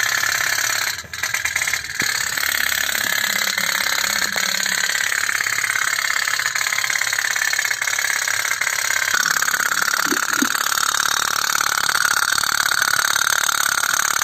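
Toy pop-pop steam boat running on water: its candle-heated tin boiler gives a rapid, steady putt-putting as it drives the boat along. The level dips briefly about a second in.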